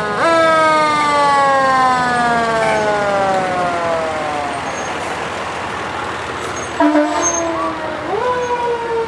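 Fire truck siren: it rises sharply, then slides slowly down in pitch over about four seconds. A short horn blast sounds about seven seconds in, then the siren swoops up again and starts to fall near the end, over the rumble of the passing trucks.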